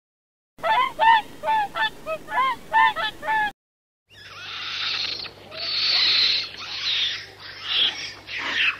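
A goose honking in a quick series of about eight calls. After a short break, a different rough, noisy sound swells and fades several times over a low steady hum.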